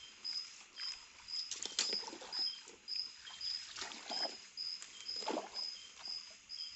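A hooked walking catfish (cá trê vàng) thrashing on a set line in shallow stream water, in irregular splashes as a hand net scoops at it. A high chirping call repeats about twice a second behind the splashing.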